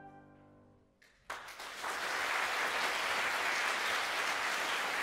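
The closing chord of a flute ensemble fades away, and after a short hush audience applause breaks out about a second and a half in and keeps going steadily.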